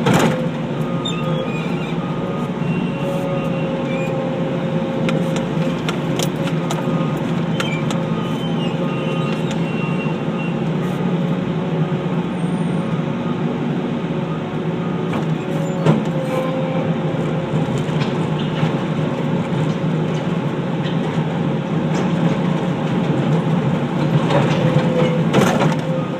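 Skid steer loader's engine running steadily under load, with a steady whine above the engine hum and scattered sharp knocks and clatters from the machine working, most of them near the end.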